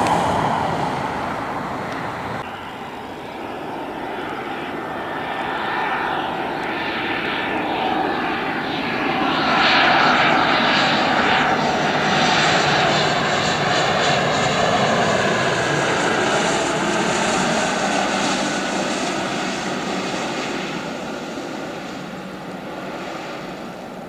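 Bombardier Global Express business jet's twin rear-mounted Rolls-Royce BR710 turbofans passing on approach: a jet rush with a high whine that slowly falls in pitch, loudest about ten seconds in and then fading away.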